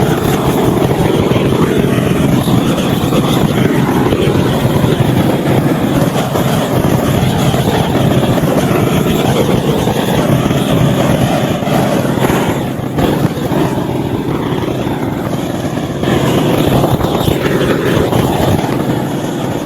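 Petrol chainsaw running hard while carving into wood, with a short dip in level about twelve seconds in.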